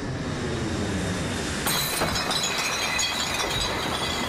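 Cartoon jet airliner's engines running steadily in flight. About a second and a half in, the plane crash-lands and skids along the ground: a sudden, loud, sustained crash of scraping and breaking metal with a shrill screech.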